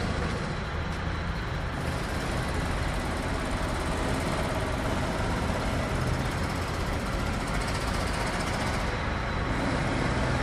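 Diesel engines of road-building machinery, a backhoe loader among them, running steadily with a constant low rumble.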